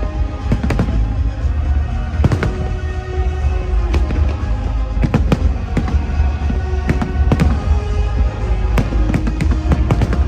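Fireworks exploding in a dense, irregular string of bangs, several a second at times, over continuous music with long held notes.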